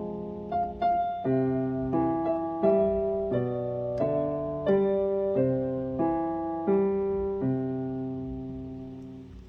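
A piano-toned keyboard plays a slow melody over held notes, each note struck and left to ring. The last chord is held and fades away near the end.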